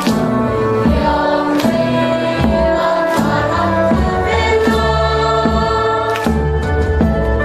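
Music: a choir of many voices singing held notes, with a sharp beat striking about every second and a half.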